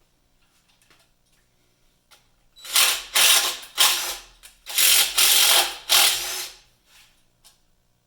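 Power ratchet driving an oil pan bolt in several short runs, starting about three seconds in. The bolt cross-threads.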